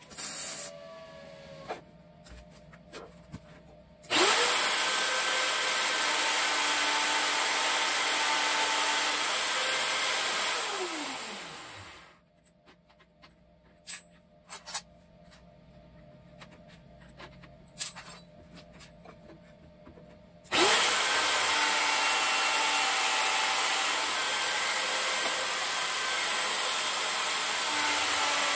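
Electric magnetic-base drill press motor starting up about four seconds in and running steadily. It winds down with a falling pitch, and after a stretch of handling clicks it starts again near the end.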